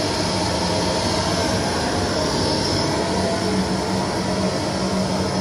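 Electric air blower of a ball-launching play tower running: a steady rush of air over a low hum.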